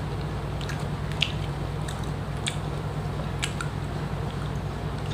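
A person chewing a mouthful of food close to the microphone, with scattered soft mouth clicks, over a steady low hum.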